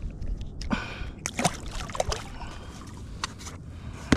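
Water sloshing and trickling around a kayak, with a cluster of short sharp knocks and clicks about a second in and a couple more near the end.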